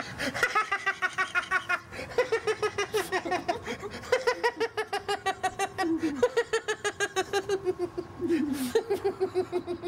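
A person laughing hard and at length: quick rhythmic ha-ha pulses, several a second, in long runs broken by short breaths, with the pitch sliding down at the end of some runs.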